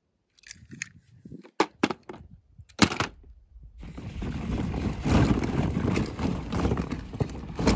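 Hollow plastic play balls clicking and clattering against each other as a hand rummages through a box of them: a few separate knocks at first, then a continuous jostling clatter from about four seconds in.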